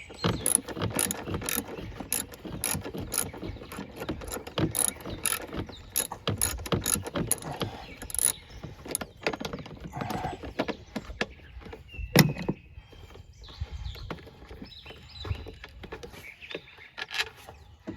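Worn-out socket ratchet clicking as a bolt is worked loose, in quick runs of clicks for the first half, then sparser clicks with a single sharp metallic clack about twelve seconds in.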